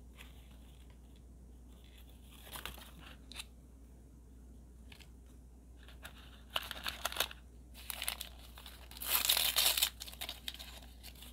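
A small teal foil packet of miniature parts being crinkled and torn open by hand: a few brief rustles, then bursts of crinkling, and the loudest, longest tear about nine to ten seconds in.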